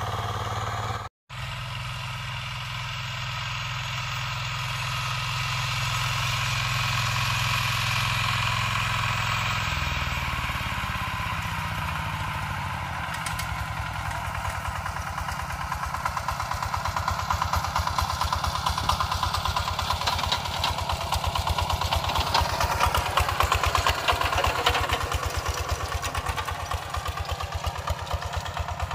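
Single-cylinder engine of a two-wheel walking tractor running steadily under load as it pulls a rice seeder over tilled soil. It cuts out briefly about a second in, and in the second half it grows louder, with a fast, even chugging as it comes closer.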